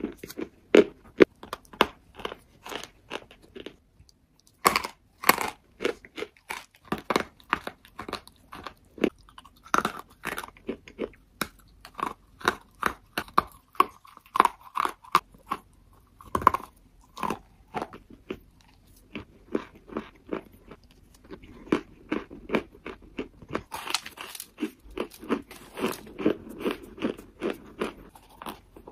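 A person biting and chewing hard, crunchy pieces: crisp crunches in quick succession, with a brief pause about four seconds in; toward the end the chewing turns denser and duller.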